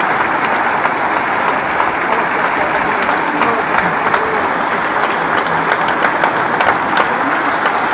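A theatre audience applauding steadily, a dense patter of many hands clapping, with a few voices mixed in.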